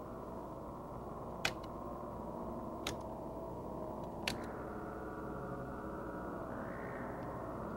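Electronic drone of many steady tones held together, broken by three sharp clicks about a second and a half apart. The drone brightens a little near the end.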